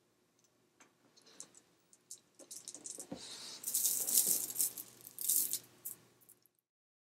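Strands of stone beads clicking and rattling as necklaces are handled: a few light clicks, then a denser rattle of beads that stops abruptly near the end.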